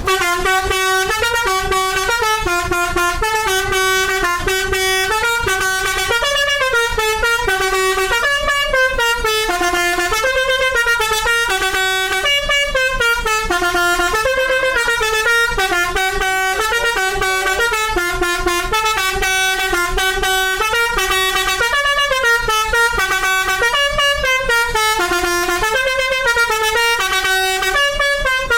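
Indonesian bus telolet horn, a multi-tone musical air horn, playing a rapid tune of changing notes without a pause.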